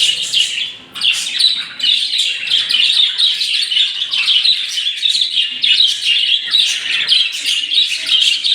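A flock of caged budgerigars chattering and chirping continuously, many calls overlapping, with a brief lull about a second in.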